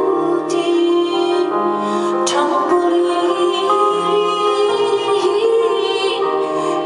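A woman singing live over piano and keyboard accompaniment, with long held notes and sustained bass notes underneath.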